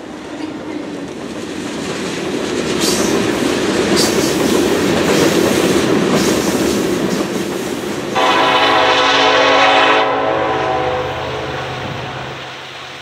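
Freight train passing close by: steel wheels rumbling and clattering over the rails beneath covered hopper cars, growing louder, with a few sharp clicks. About eight seconds in, a diesel locomotive's air horn starts abruptly and blows one long blast of about two seconds. A low rumble then fades away.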